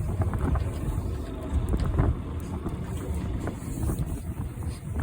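Wind buffeting the microphone on a small fishing boat at sea, over a low, uneven rumble of the boat and water, with a few faint light clicks.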